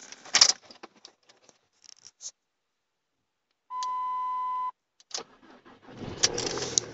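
Keys jangling and clicking, then a steady electronic beep lasting about a second. About six seconds in, the 2005 Ford Mondeo TDCi diesel engine catches and starts running with a rattly clatter.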